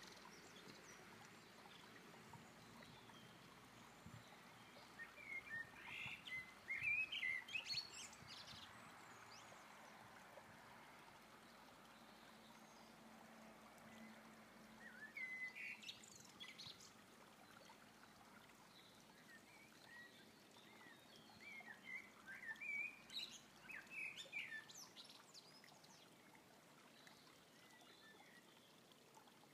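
Common blackbird singing faintly in three separate bouts of short phrases with higher twittering, several seconds apart, over a steady background hiss.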